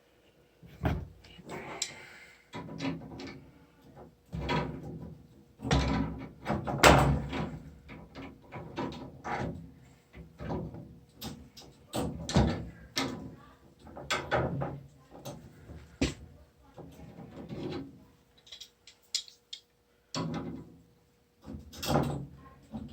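Irregular clanks, knocks and scraping of wrenches on the brass fittings of a washing machine shut-off valve as it is turned and tightened onto the supply line.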